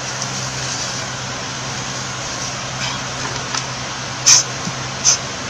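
Steady mechanical hum and hiss of the room's background noise, broken by two short hissy sounds about four and five seconds in.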